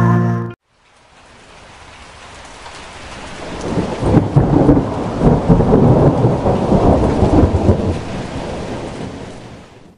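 Rain falling, with a long rolling rumble of thunder that builds over a few seconds and fades away.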